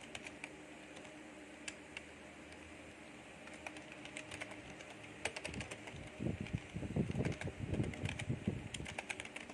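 Computer keyboard keys clicking in scattered bursts of typing, sparse at first and in quick clusters later, with some duller low thumps in the second half.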